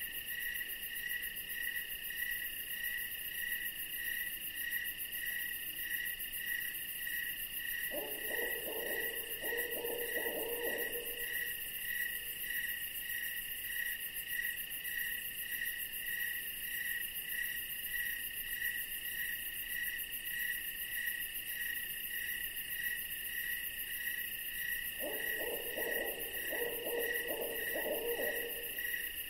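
Night ambience: an owl hooting in two short series, about 8 seconds in and again about 25 seconds in, each lasting about three seconds, over crickets chirring in a steady, regular pulse.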